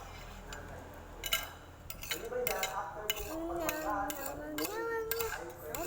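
Spoon clinking and scraping against a plate in a series of sharp clicks as someone eats. From about two seconds in, a pitched voice runs underneath.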